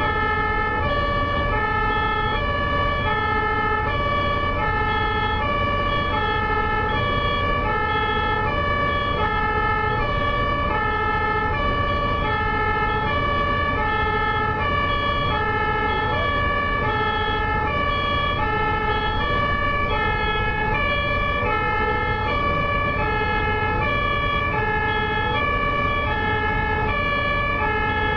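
Two-tone siren of a German ambulance alternating evenly between a high and a low note, the pair repeating about every second and a half without a break, over a steady low rumble.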